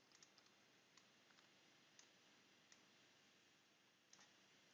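Near silence broken by a handful of faint computer-mouse clicks, spaced roughly a second apart, some of them in quick pairs.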